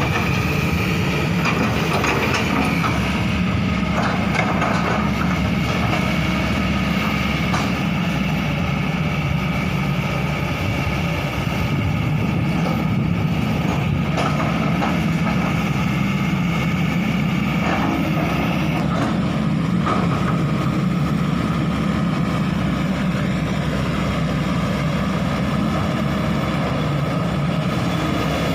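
Hydraulic excavator's diesel engine running steadily, with a few faint knocks at intervals.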